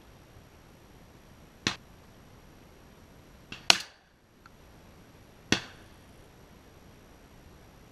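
Shotgun fired three times at doves, about two seconds apart, each shot a sharp crack with a brief echoing tail. A fainter crack comes just before the second shot.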